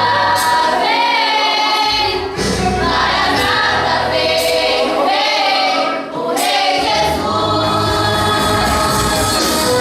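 A vocal group singing a gospel song in harmony over accompaniment, whose low bass drops out briefly about a second in and again around five to six seconds.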